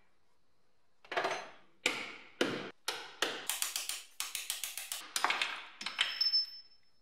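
Hammer blows on steel as a transverse control arm is knocked loose from a Mercedes W123's front suspension: about twenty sharp, ringing metallic strikes. They start about a second in, come faster through the middle, then stop shortly before the end.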